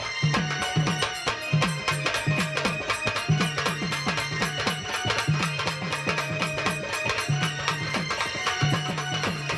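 Instrumental folk-style music with a quick, steady drum beat under a melody instrument: an instrumental interlude of a Marathi devotional song's backing track.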